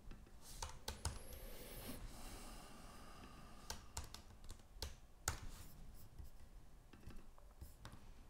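Faint computer keyboard typing and clicks, a scattered handful of sharp taps as short entries are keyed in.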